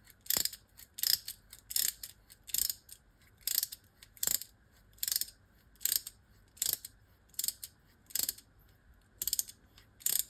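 Small ratchet wrench clicking in short bursts, about one every 0.8 seconds, as it is swung back and forth to drive the screw of a pin-replacement tool. The screw is pressing a new pin into an RC car driveshaft and pushing the old pin out.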